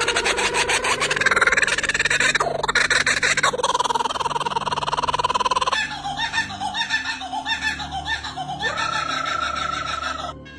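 A bird calling loudly, with long calls that carry a fast pulse, then a quick series of short repeated notes about halfway through, cut off abruptly near the end.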